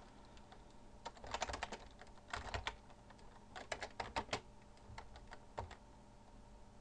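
Typing on a computer keyboard: short runs of key clicks with pauses between them.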